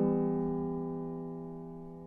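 Background music: a piano chord held and slowly fading.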